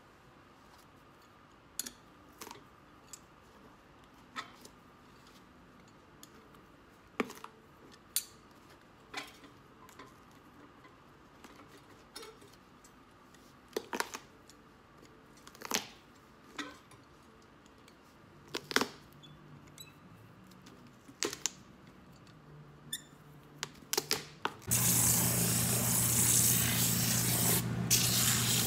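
Sharp clicks and snaps, one every second or two, as steel pincers pry and pull at the old leather sole and heel of a cowboy boot during removal. About 25 seconds in, a shoe finishing machine switches on with a steady hum, and there is a loud hiss of the boot's sole being ground against its wheel.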